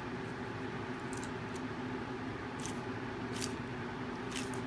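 Steady mechanical hum with a low steady tone. Over it come about five short, crisp clicks spread across the few seconds while a crocodile monitor lizard works a whole balut egg in its jaws.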